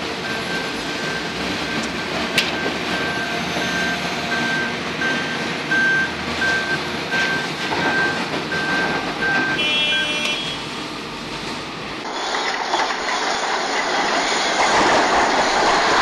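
Heavy quarry machinery, wheel loaders and a hydraulic excavator, running with diesel engine noise, while a reversing alarm beeps about one and a half times a second for the first ten seconds. About twelve seconds in the sound switches to a louder, rougher rumble.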